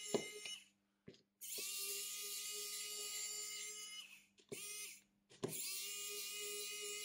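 Small electric tool motor whining in stretches of two to three seconds. It stops and restarts twice, with short blips between, and each restart rises quickly in pitch.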